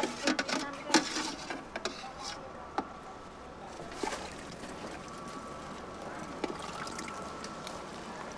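Sharp clicks and knocks of a knife and metal utensils against a metal pot and bowl at a street food cart. They come thick in the first couple of seconds, then as scattered single clinks.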